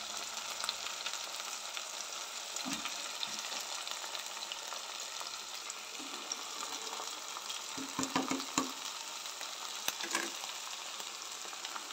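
Rat-tail radish pods (moongray) sizzling in hot oil in a pot as a wooden spatula stirs them, with a few knocks and scrapes of the spatula against the pot, mostly near the end.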